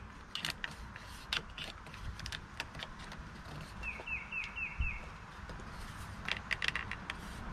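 Light clicks and taps of a hard plastic arm cover being handled and fitted against a motorcycle windscreen arm, with a bird calling a quick run of about five chirps some four seconds in.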